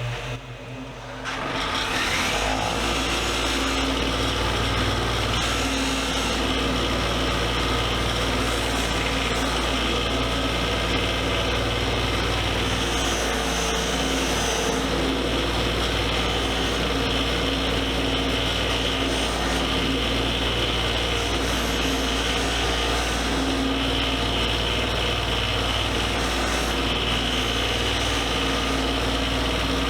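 Power tool spinning a fiber surface-conditioning wheel, starting up about a second in and then running steadily as the wheel rubs paint out of stamped metal lettering.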